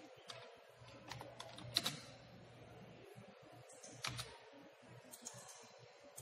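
Scattered clicks of a computer keyboard and mouse: a handful of irregular keystrokes and clicks, the loudest about two seconds in, over a low steady hum.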